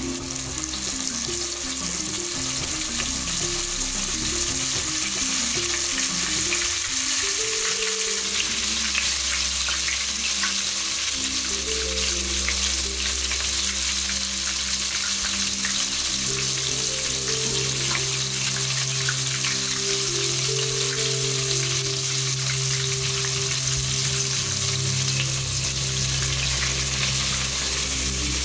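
Flour-dusted fish pieces frying in hot oil in a pot: a steady, dense crackling sizzle. Background music with low stepping notes plays underneath.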